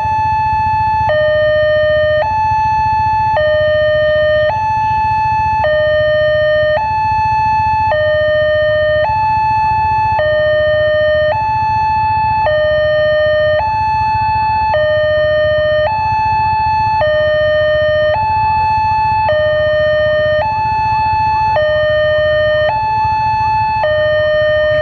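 Loud electronic two-tone warning signal, alternating evenly between a low and a high tone about once a second without a break.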